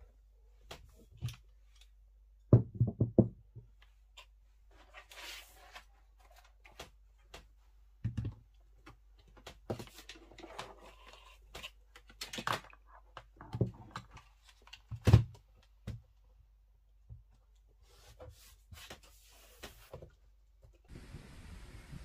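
Items being set down and arranged on a desk: irregular knocks and thuds, with soft rustling between. The loudest is a cluster of knocks a few seconds in and a single thud about two-thirds of the way through.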